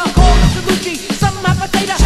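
Hip hop backing track: a deep bass note lands just after the start, under drum hits and short pitched stabs.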